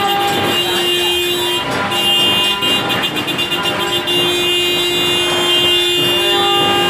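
Several horns sounding long, overlapping held blasts, with a short break about one and a half seconds in: celebratory New Year honking.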